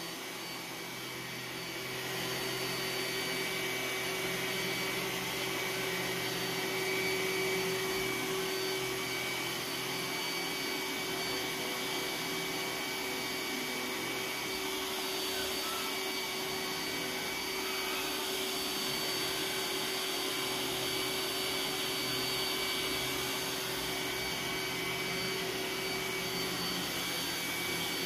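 iRobot Roomba s9 robot vacuum cleaning high-pile carpet: a steady whir from its suction motor and brushes with a thin, constant whine, growing slightly louder about two seconds in and then holding level.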